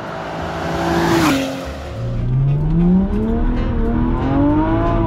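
Car engine accelerating hard. The revs rise, drop at a gear change about a second in with a short burst of hiss, then climb steadily again.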